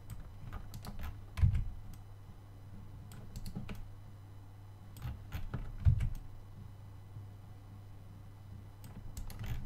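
Scattered clicks of a computer keyboard and mouse in use, with two louder knocks, about a second and a half in and again around six seconds, over a low steady hum.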